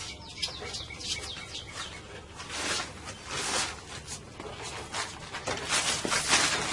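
Small birds chirping over and over in short, high, falling chirps, with rustling from hands working in between.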